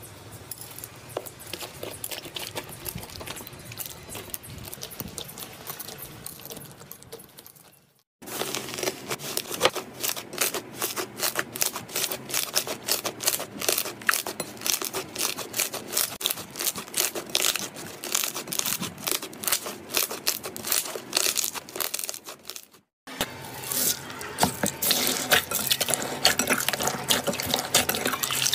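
Hands squishing and kneading slime: a soft, quiet squish at first, then, after a cut about 8 s in, a dense run of sharp crackling pops from the slime, and after another cut near the end, wetter squishing crackles.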